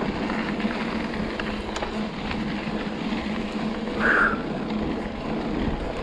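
Hardtail mountain bike riding down a dirt trail: steady tyre and rolling noise, with a few faint clicks and rattles from the bike and a short hiss about four seconds in.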